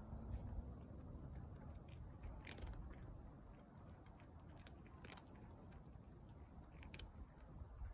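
Calico cat chewing dry kibble, with faint crunches every second or two.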